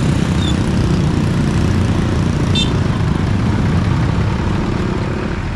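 Steady low rumble of a train passing at speed, easing slightly near the end, with a brief faint high squeal about two and a half seconds in.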